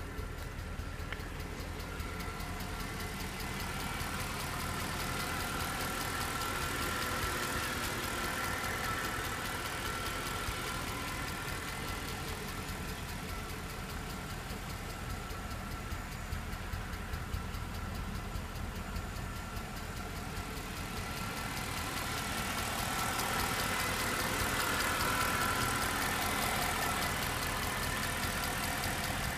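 Mercedes-AMG E63's V8 engine running at idle with a fast, continuous ticking noise over the engine hum.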